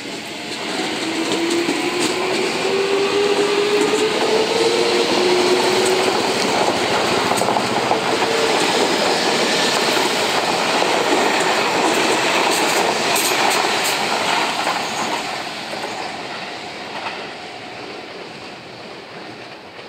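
Seibu 20000-series electric train pulling away from the platform and passing close by. Its traction motor whine climbs in pitch as it speeds up, over wheel clatter on the rails. The sound fades from about fifteen seconds in as the train moves off.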